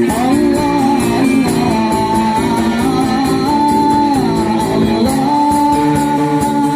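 Sholawat, Islamic devotional song: a voice sings long, ornamented lines over instrumental accompaniment with a steady percussive beat.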